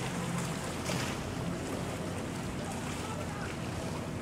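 Motorboat engine running steadily at speed some way off, under wind noise on the microphone.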